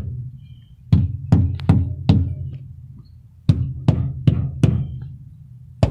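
Tire mallet striking dump truck tires: two quick series of dull, booming knocks, about five blows then four. The thump is how the tires' inflation is checked by ear, and one of the tires here is a flat one.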